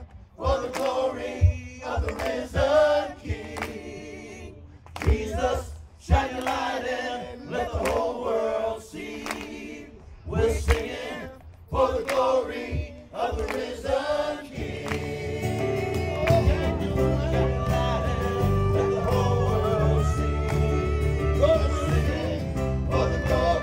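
Gospel choir and worship band performing. For about fourteen seconds the voices sing in phrases with breaks over sparse low accents. Then the band comes in fully, with a steady low bass under the singing.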